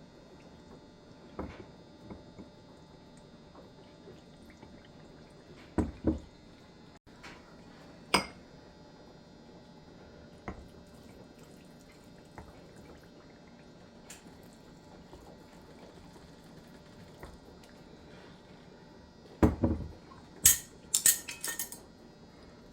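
Scattered clinks and knocks of utensils against glass canning jars and pots, with a burst of clattering near the end.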